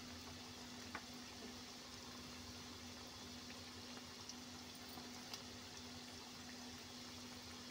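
Onion pakoras deep-frying in hot oil in a kadhai: a steady sizzle with a few small pops.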